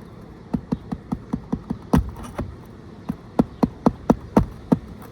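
A steel flat bar being struck in quick runs of sharp taps, about five a second, to drive it under roof shingles and pry out the nails. There are two louder single strikes around two seconds in.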